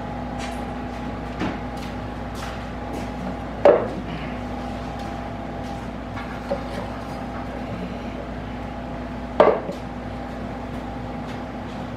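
A few sharp knocks and taps on a wooden board at a kitchen counter as the chef sets out food with long plating chopsticks. The loudest come about four seconds in and again near the end, over a steady low hum.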